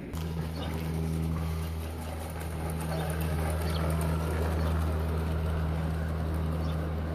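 Gauge 3 model train running past on garden-railway track: a steady low hum with wheels rumbling and lightly clicking over the rails.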